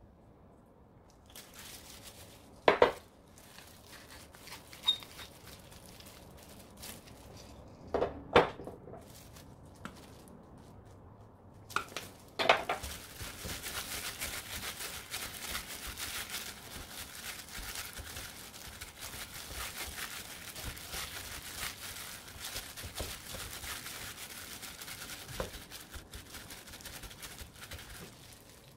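A few sharp knocks in the first half, then from about halfway a steady crinkling of a disposable plastic glove as a gloved hand kneads raw seasoned beef rib meat in a glass bowl, working the seasoning in.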